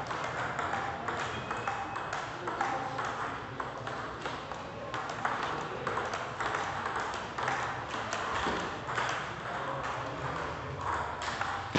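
Table tennis balls clicking off paddles and tables during rallies, a quick irregular run of sharp ticks with more distant knocks from a neighbouring table.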